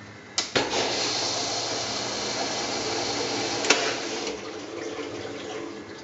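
Water rushing into a Kenmore Elite HE5T front-load washer through its inlet valve as it fills on a test run. A click comes just before the flow starts about half a second in, and a sharp pop comes a few seconds later, popping that is normal with air still in the lines. The rush eases off near the end.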